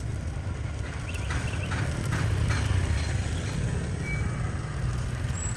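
Steady rumble of street traffic, with a few light clatters about a second in and again near the middle.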